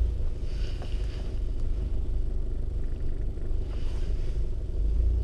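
A Toyota SUV driving, heard from inside the cabin as a steady low rumble of engine and road noise.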